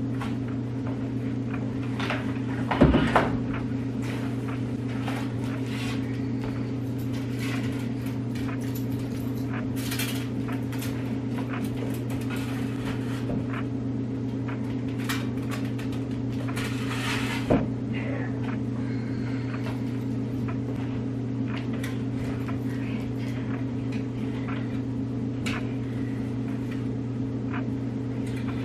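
Household items being moved about in a coat closet: frequent light clicks and rustles, with a louder thump about three seconds in and another about halfway through, over a steady low hum.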